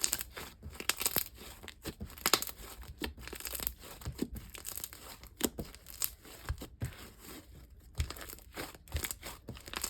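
Slime being folded and flipped over by hand, with many irregular small pops and crackles as trapped air bubbles burst.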